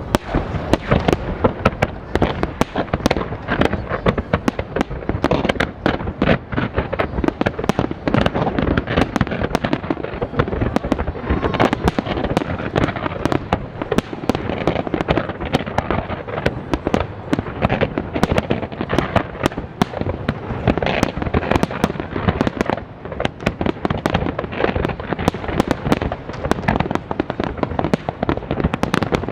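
A large fireworks display going off without a break: dense, rapid crackling and popping over a continuous rumble of bursting shells.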